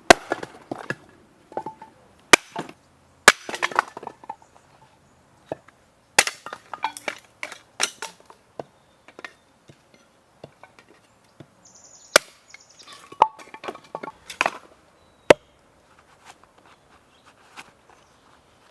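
Irregular sharp wooden chops and knocks, several seconds apart, with lighter clattering between them and a brief high clink about two-thirds of the way through.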